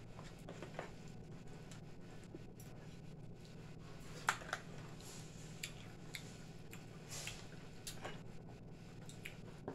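Mealtime eating noises: scattered small clicks, taps and rustles of hands, forks and cardboard food boxes as fried chicken is pulled apart and eaten, the sharpest tap about four seconds in, over a steady low hum.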